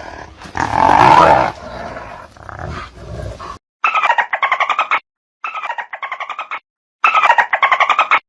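Animal calls: a loud, pitched roar-like call for the first few seconds, then repeated bursts of about a second each, made of rapid chattering pulses, separated by short gaps.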